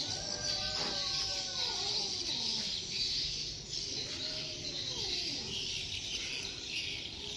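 Roosters crowing: several long, drawn-out calls that sag and fall in pitch, some overlapping, over a steady high hiss.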